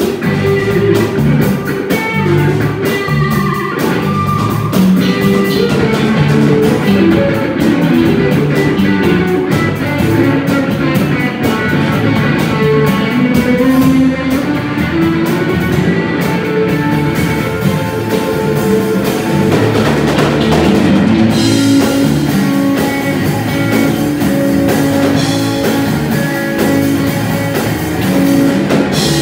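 Live rock band playing: electric guitar, bass guitar and drum kit with cymbal crashes.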